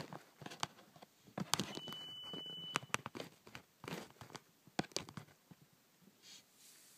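Irregular clicks and knocks, a few of them sharp and loud.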